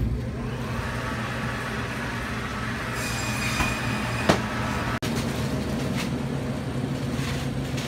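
Steady low mechanical hum of store machinery, with a thin high whine coming up about three seconds in and one sharp click a little after four seconds.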